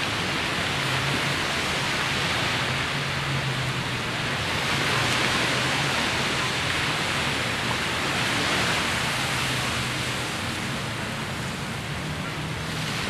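Steady rush of wind across the microphone mixed with small waves breaking on a sandy shore, swelling a little about five and eight seconds in.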